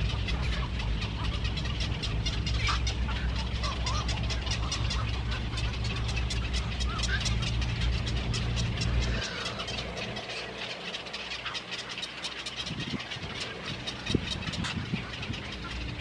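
Birds calling, with short calls and rapid ticking chatter throughout, over a steady low mechanical hum that stops about nine seconds in. A single sharp knock sounds near the end.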